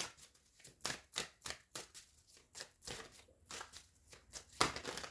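Tarot cards being shuffled and handled by hand: a quick, uneven run of sharp card flicks and slaps, about two or three a second, with a louder one near the end.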